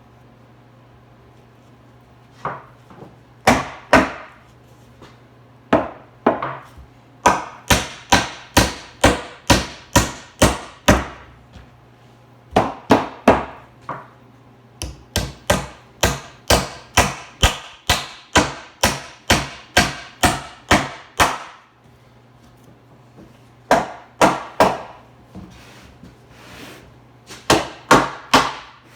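Hammer driving nails into wood, in runs of steady blows about two a second with short pauses between the runs.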